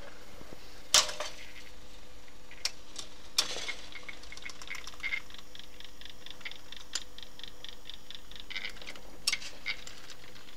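Mechanism of a Jupiter 100 jukebox at work: the record-selection carriage travels along the record magazine, with sharp mechanical clacks and a run of even ticks, about four a second, over a steady low hum.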